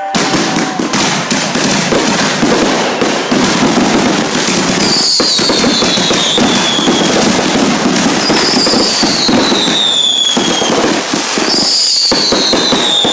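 Dense barrage of consumer fireworks: rapid overlapping bangs and crackling without a break, with a falling whistle about every three seconds from about five seconds in.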